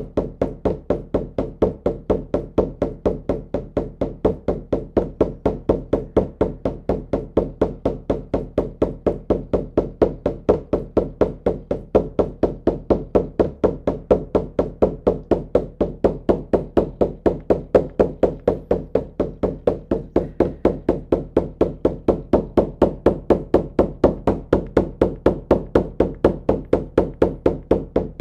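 Shamanic drum beaten in a steady, rapid, even rhythm, the repetitive drumbeat of a drum journey.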